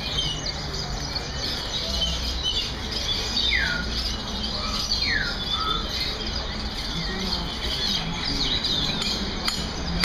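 Many caged songbirds chirping and twittering at once. About three and a half and five seconds in come two clear whistles that slide downward.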